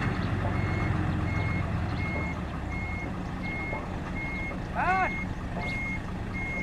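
Dump truck's diesel engine running while a reversing alarm beeps steadily at one pitch, about one and a half beeps a second. A short rising-and-falling squeak cuts in about five seconds in.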